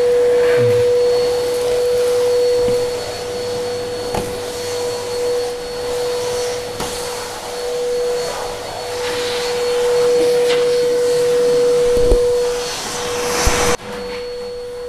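Vacuum cleaner running with a steady whine and rush of air, its floor nozzle sucking up grit from a hard floor, with a few light knocks. About a second before the end the sound suddenly drops and the vacuum carries on more distant.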